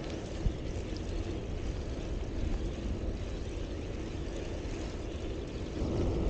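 Steady low rumble of wind on the microphone and rolling noise from a moving bicycle, growing louder near the end, with one small knock about half a second in.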